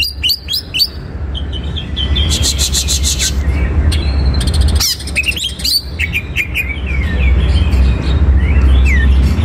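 Male greater green leafbird singing: short phrases of sharp whistled chirps and slurred notes, with a rapid run of repeated notes about two seconds in. A steady low hum runs underneath.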